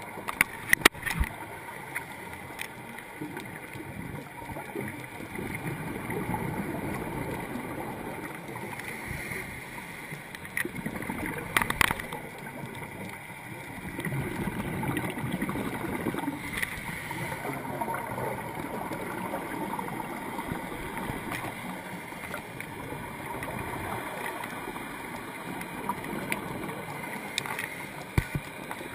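Underwater ambience recorded through a dive camera, with scuba regulator exhaust bubbles gurgling in slow swells. A few sharp clicks or knocks stand out, the loudest about a second in and again about twelve seconds in.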